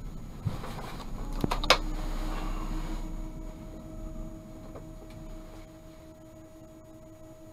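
Inside a Tatra T3 tram: two sharp clicks, then a steady electrical hum with a fainter higher tone comes in as the general running noise fades away.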